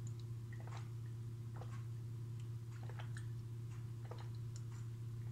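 Quiet swallowing and mouth sounds of someone drinking from a glass: a handful of faint, irregularly spaced gulps and clicks over a steady low hum.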